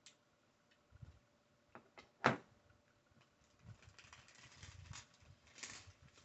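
Plastic building bricks clicking together by hand, a few sharp clicks with the loudest about two seconds in, followed by soft rustling and clattering of loose plastic pieces being picked through on a table.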